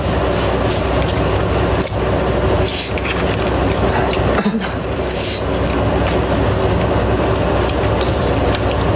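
Steady low machine hum with a rush of air, and brief rustling hisses about three and five seconds in.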